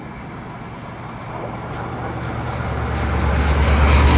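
Class 43 diesel high-speed train approaching at speed, its rumble growing steadily louder. A deep engine drone swells strongly from about three seconds in as the power car draws near.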